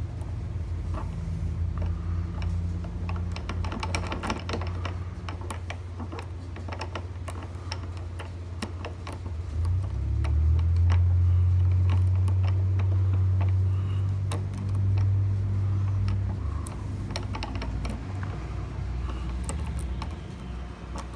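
Small metal tools clicking and scraping inside a failed gumball machine lock cylinder while the pins are probed, in irregular bursts of light ticks. A low hum runs underneath and grows louder for several seconds in the middle.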